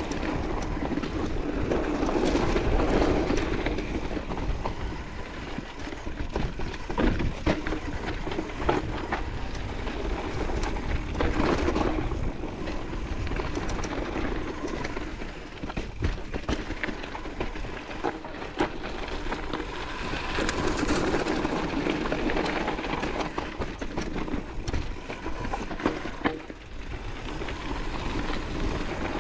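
Mountain bike rolling fast down a dirt trail, heard from a chest-mounted GoPro: a steady rushing rumble of tyres and wind that swells and fades several times, with frequent short rattles and knocks as the bike hits bumps.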